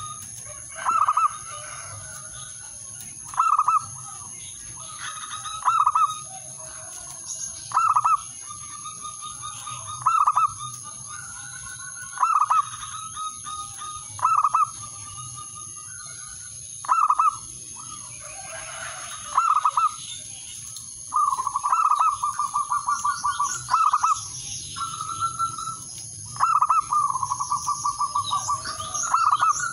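Male zebra dove (perkutut) cooing in short, loud bursts about every two seconds. In the second half these turn into longer, rapid rolling trills of staccato coos. A faint, steady, high-pitched whine runs underneath.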